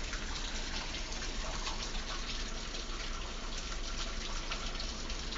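Steady hiss of water spray from a hose jet shooting up into a conifer, with many small droplet hits as the water falls back through the branches like rain.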